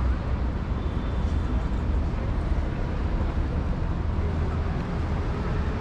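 Steady city street traffic noise, a continuous low rumble of vehicles.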